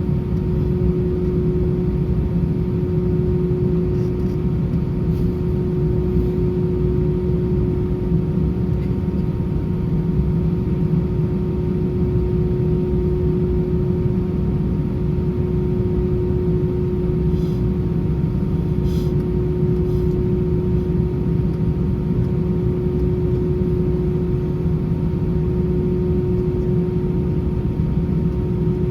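Steady cabin drone inside an Airbus A320: a constant low rumble with an even hum, and a few faint ticks.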